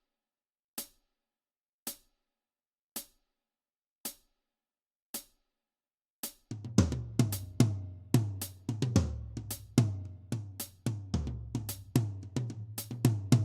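Drum-led music: a lone hi-hat ticking about once a second, then a full drum beat with kick drum and snare coming in about six seconds in.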